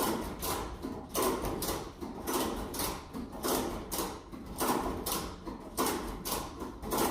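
Ratchet strap being cranked, its ratchet clicking in quick pairs about once a second as the handle is pumped to lift a plastic truck bed.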